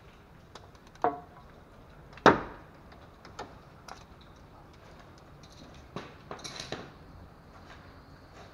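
Knocks and clicks from work on a car's oil filter as it is loosened from underneath the engine: two sharp knocks about one and two seconds in, the second the loudest, then a short run of clicks and rattling around six to seven seconds in.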